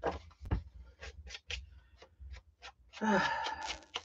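Paper and a photo being handled on a desk: soft rustles and light taps, with a dull thump about half a second in. About three seconds in comes a short sigh.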